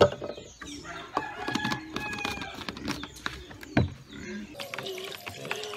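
A rooster crowing and chickens clucking in the background, with sharp knocks and clatter of a measuring cup and a spatula against a plastic basin as liquid soap is stirred; the loudest knocks come at the very start and just before 4 seconds in.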